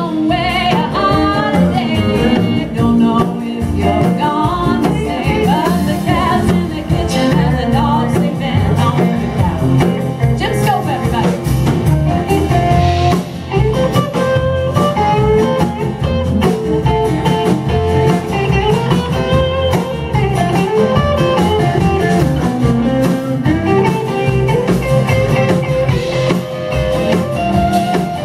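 Live band playing a blues-rock song on guitars, with a woman singing over it in the first few seconds, then a guitar carrying the melody.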